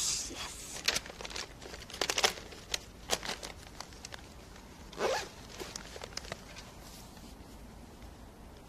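Handling noise on a close-worn camera microphone: a rustling swipe of clothing or hair at the start and another about five seconds in, with scattered sharp clicks and taps in between as the gear is fiddled with.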